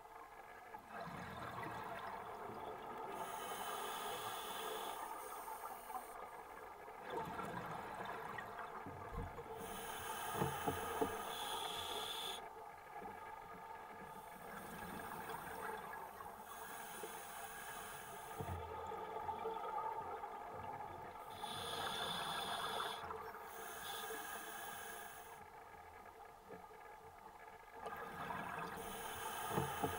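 Scuba diver breathing through a regulator underwater: a hissing breath and bubbling exhale that recur every five or six seconds, over a steady hum.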